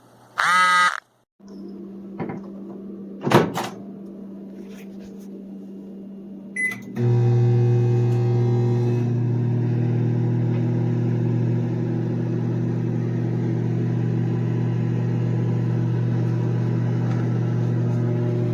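Toshiba small 900 W microwave oven: a couple of clicks and a short keypad beep, then the oven starts heating with a loud, steady low hum that runs on.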